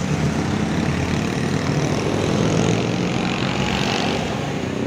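Tour bus engine running, a steady low drone under a wide rush of noise.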